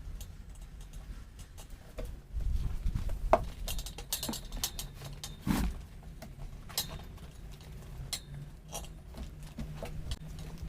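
Irregular metal clinks and knocks from hand tools and parts being handled during a motorcycle front-tyre change, with a louder stretch of clattering about two seconds in and a single heavier knock about halfway through.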